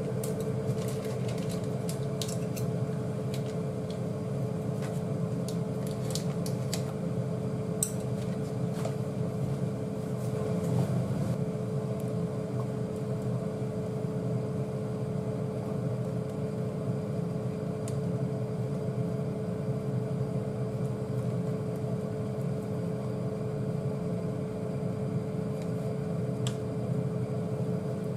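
Steady hum of a kitchen appliance fan with one steady tone in it. Over it come light clicks and taps of chopsticks against a saucepan as curry roux is stirred into the broth, mostly in the first several seconds.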